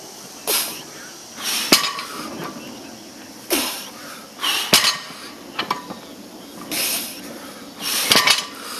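A barbell loaded with 315 lb of weight plates is deadlifted for repeated reps. The plates touch down with a metal clink three times, about every three seconds, between the lifter's loud, forceful breaths.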